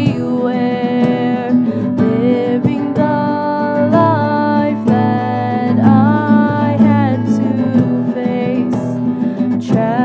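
Background music: a song with acoustic guitar and a long-held melody line gliding between notes.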